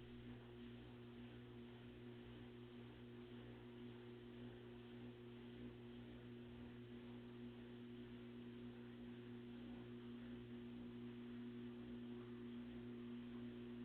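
Samsung WF45K6500AV washing machine running with a faint, steady hum of a couple of held tones, slowly growing a little louder, with no squeal: the noise from the pedestal is gone.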